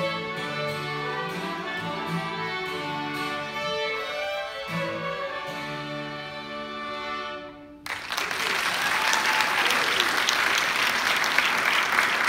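A children's violin group with acoustic guitar accompaniment plays the closing bars of a tune, and the music stops about two-thirds of the way through. Audience applause starts at once and fills the rest.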